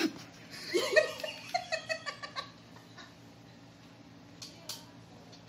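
A woman's high-pitched laughter: a rising squeal about a second in, then a quick run of short giggling bursts that stops after a second or two.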